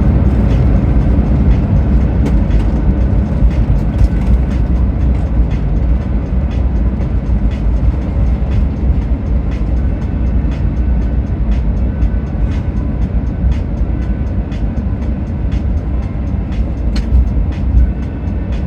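Airbus A350 airliner rolling on the ground after landing, heard inside the cabin: a loud, steady low rumble with frequent short knocks as the wheels cross pavement joints, easing off slowly as it slows.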